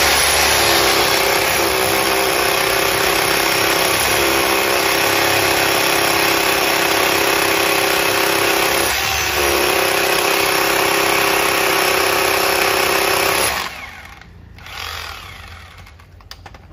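Bosch and Makita corded rotary hammers hammer-drilling into concrete blocks: a loud, steady hammering din that cuts off suddenly about three-quarters of the way through.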